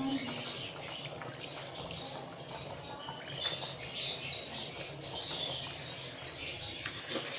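Chickpea stock boiling hard in an aluminium pot, with steady bubbling, hissing and small pops.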